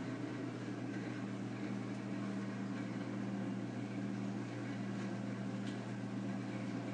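Steady machine hum with an even hiss underneath.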